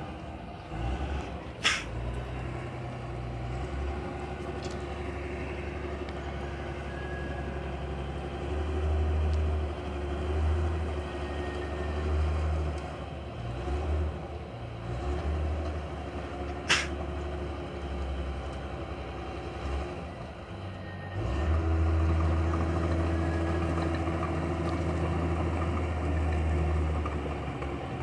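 Two-wheel hand tractor's engine running steadily as it ploughs a muddy rice paddy, its level swelling and easing as it works and growing louder about three-quarters of the way in. Two sharp clicks cut through, one about two seconds in and one midway.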